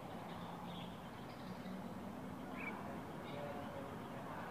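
Faint outdoor ambience with a low steady hum and a few scattered, short, faint bird chirps.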